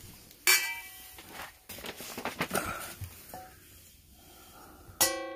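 Stainless steel nesting pots and pans clanking together as they are stacked: a ringing clank about half a second in, some lighter scraping, then a louder clank near the end that rings on.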